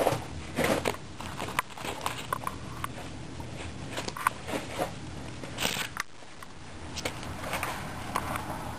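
Guinea pigs chewing on a raw carrot: irregular crisp crunches and small clicks of gnawing.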